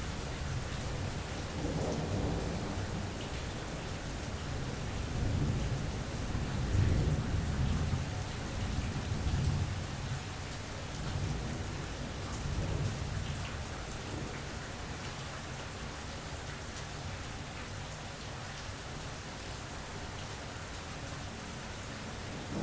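Steady rain falling through a thunderstorm, with a long roll of thunder rumbling low underneath. The rumble swells over the first few seconds, is loudest about a third of the way in, then dies away and leaves the rain alone.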